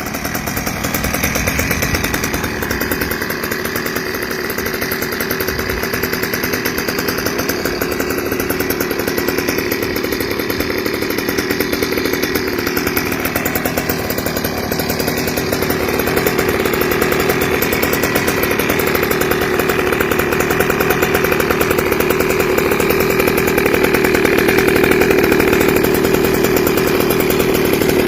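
GoPed scooter's small two-stroke engine running hard through an aftermarket RF expansion-chamber exhaust pipe, with a buzzing, chainsaw-like note. It runs steadily and gets a little louder about halfway through.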